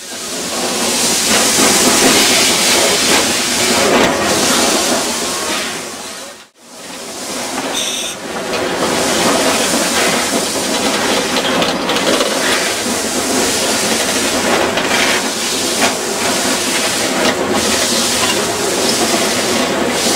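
Steady steam hiss and running noise in the cab of Reader Railroad No. 2, a 2-6-0 steam locomotive under way. The sound cuts out sharply for a moment about six and a half seconds in, and a brief high tone sounds about eight seconds in.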